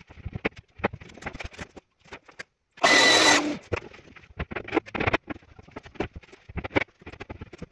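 Sped-up workshop sounds: scattered knocks and clatter of tools and timber being handled, with a short loud burst of a power tool running about three seconds in.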